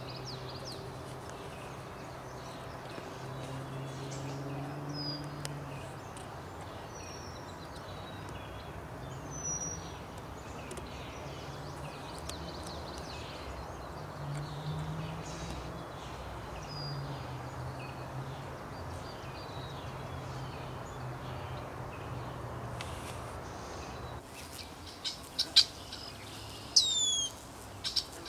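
Small birds chirping and whistling over a steady background, with a low hum that swells and fades every second or two. Near the end come a few sharp, loud calls whose notes slide quickly downward.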